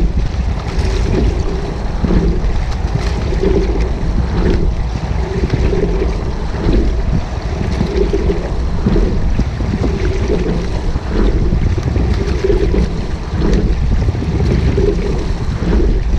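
Rowing shell being sculled on calm water: a short knock with each stroke, repeating about every two seconds, over water running along the hull, with steady wind noise on the microphone.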